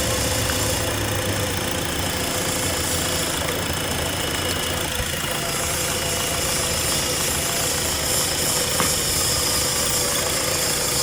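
Honda Accord engine idling steadily while its ignition coils are tested, running with a misfire that has put the car in limp mode.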